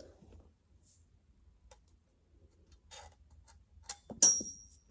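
Small clicks and rattles of screws being handled against a smoke alarm mounting bracket, then a sharp metallic clink that rings briefly near the end.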